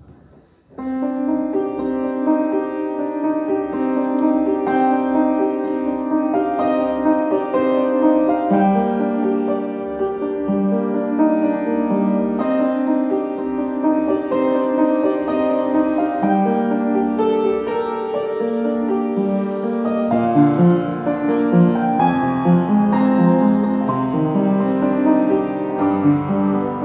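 Upright piano being played: a flowing run of notes over chords that starts about a second in, with deeper bass notes joining about twenty seconds in.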